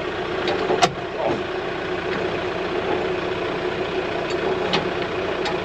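A diesel Kioti tractor engine idling steadily, with a few sharp metallic clicks from a hand tool being worked on the mower's hitch.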